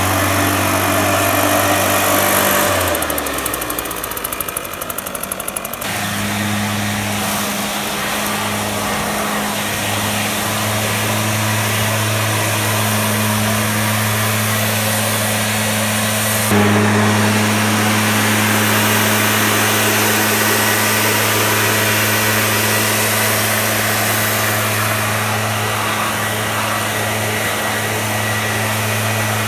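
Husqvarna 150BT backpack leaf blower's two-stroke engine running under throttle, with the rush of air from the tube, a steady high engine note that dips briefly a few seconds in.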